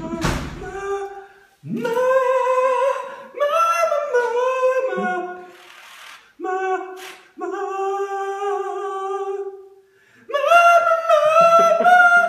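A man singing unaccompanied in a few phrases of long held notes with short breaks, louder and higher from about ten seconds in. Two sharp thumps at the very start.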